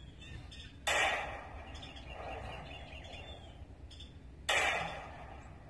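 Two 9mm pistol shots from an SCCY CPX2, about three and a half seconds apart, each trailing off over about half a second.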